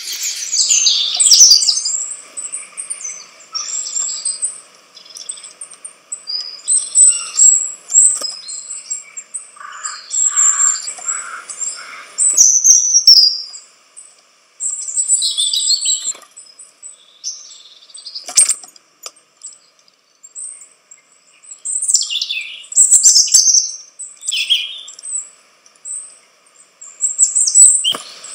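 Wild songbirds chirping and calling in short, high notes with pauses between them, with a few quick falling calls near the end. Two sharp clicks sound partway through.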